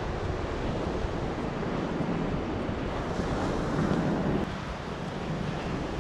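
Surf breaking and washing up onto a sand beach, with wind rumbling on the microphone. The wash swells toward the middle and eases off after about four and a half seconds.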